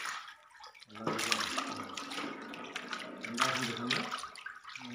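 Water splashing as a fish is held and let go in shallow water, thrashing as it swims off, with a person talking over it.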